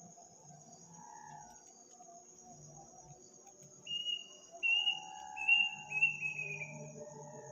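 A night bird calling four times in quick succession, loud high notes each a little longer and falling at the end, starting about four seconds in. A steady high chirring of crickets continues underneath.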